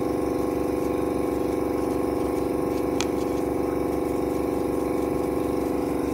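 A steady machine hum, like a motor running at constant speed, with one short sharp click about three seconds in.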